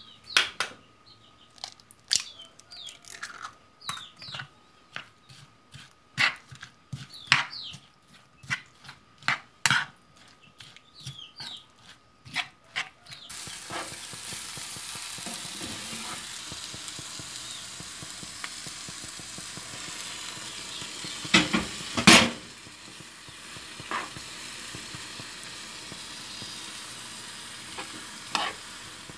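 A metal spoon clinking and scraping against a bowl as raw sausage meat, onion and egg are mixed. About 13 seconds in it gives way to the steady sizzle of the mixture frying in a pan, with a spoon scraping and knocking on the pan, loudest a little past the 20-second mark.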